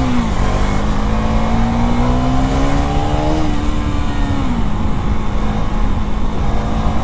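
Single-cylinder engine of a third-generation KTM 390 Duke motorcycle, heard from the rider's seat, pulling with slowly rising revs, then easing off about four seconds in and holding steady at lower revs. Wind rumble on the microphone runs underneath.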